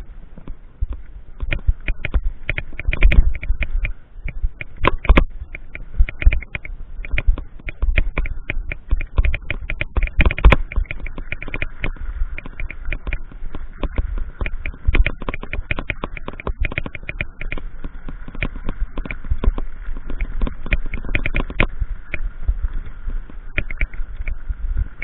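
Irregular crunching footsteps and knocks, typical of walking on railway track ballast, with the thumps of handling or jolting on a small action camera. The sharp clicks come many to the second, the heaviest thumps about three, five and ten seconds in, over a faint steady high whine.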